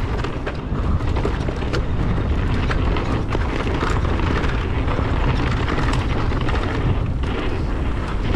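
Mountain bike riding down a rough dirt trail: a loud, steady rush of wind on the camera's microphone and tyre rumble, broken by frequent sharp knocks and rattles from the bike.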